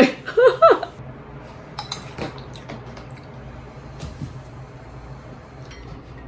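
Tableware at a meal: a few light clinks of utensils against dishes, spaced irregularly.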